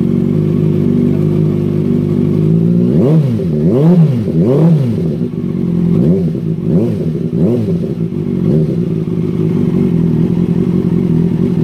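2008 Honda CBR600RR's inline-four engine idling through a Yoshimura RS-5 carbon-fibre slip-on exhaust. About three seconds in it is revved three times in quick succession, then blipped a few more times more lightly, and it settles back to a steady idle.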